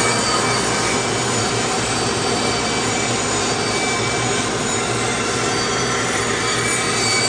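Band saw running steadily, its blade cutting a curved line through a cedar board.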